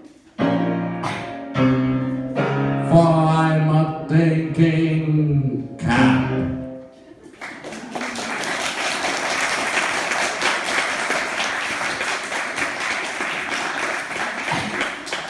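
Piano plays the closing chords of a song for about six seconds, then an audience claps steadily until the end.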